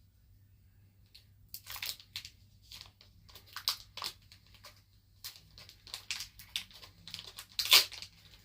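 Plastic trading-card pack wrapper being crinkled and torn at by hand in irregular bursts, starting about a second and a half in and loudest near the end; the wrapper is hard to tear open.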